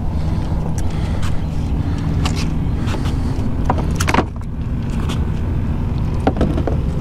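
A steady low motor hum, with a few sharp slaps, the loudest about four seconds in, from a live sheepshead flopping on a fiberglass boat deck.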